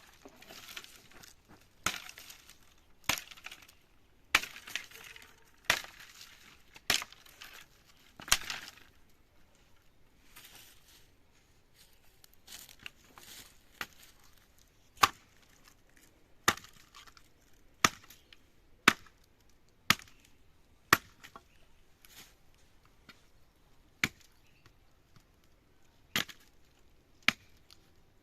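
Chopping with a hand tool: a run of sharp single strikes, roughly one every second or so, with a softer rustling hiss around the strikes in the first third.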